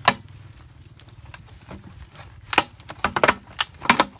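Irregular knocks and taps of a large plastic drum and PVC pipe being handled: one sharp knock at the start, then a quick run of several knocks in the last second and a half, over a faint steady low hum.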